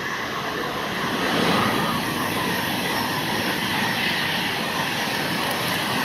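Steam special train running away from the platform: a steady rush of coaches and the trailing diesel locomotive on the rails, loudest about a second and a half in.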